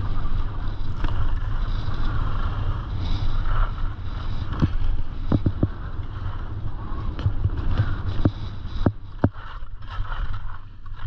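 Wind rushing over the microphone of a camera worn while skiing downhill, mixed with skis hissing and scraping across groomed snow. A few sharp clicks come around the middle, and the noise eases slightly near the end.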